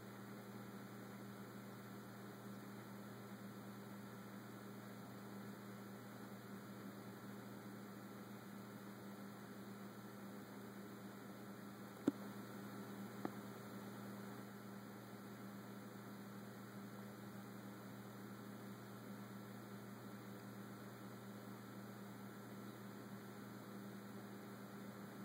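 Faint steady electrical hum with a low hiss. A sharp click about twelve seconds in and a softer one a second later.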